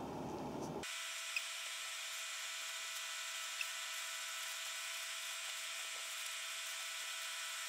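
Steady hiss with faint high-pitched whine tones. A low rumble cuts off abruptly just under a second in, and two faint ticks come a few seconds apart.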